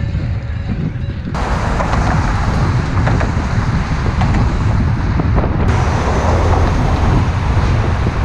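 Wind rushing over the camera's microphone while cycling, mixed with traffic noise from the adjacent roadway. About a second in, the noise abruptly becomes brighter and hissier.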